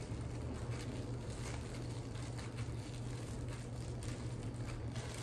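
Faint rustling and light clicks of wrapped candy and a plastic bag being handled, over a steady low hum.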